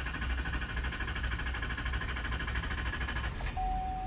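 Starter cranking the Duramax 6.6 L V8 diesel of a 2020 Chevy Silverado 2500HD in an even rhythm. The long crank comes from the fuel system purging the air let in by a fuel filter change. The cranking stops about three seconds in, and a steady tone follows near the end.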